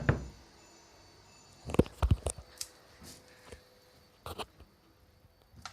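A few scattered knocks and clicks, the loudest cluster about two seconds in, with quiet in between.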